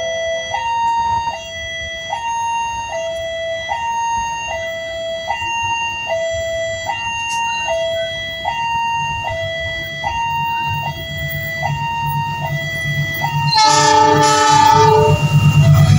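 Level-crossing warning alarm sounding two electronic tones in alternation, switching a little faster than once a second, while the engine rumble of an approaching diesel locomotive builds underneath. Near the end the locomotive's horn blows a chord of several tones for about two seconds.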